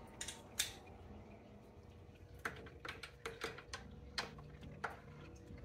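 Faint, irregular metallic clicks and taps from a socket wrench with an extension being worked onto and turning the 10 mm nuts of a car's thermostat housing, about ten scattered clicks.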